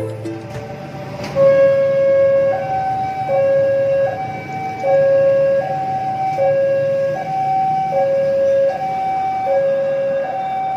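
Electronic two-tone warning alarm of a railway level crossing, switching back and forth between a low and a higher tone about every three-quarters of a second, starting about a second and a half in: the signal that a train is approaching.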